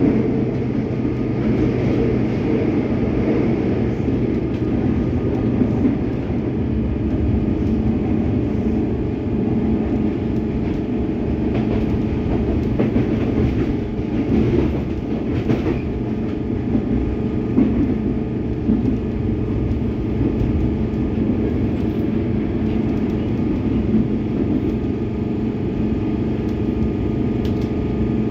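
Cabin running noise of a Comeng electric suburban train on the move: a steady rumble of wheels on rail under a constant hum.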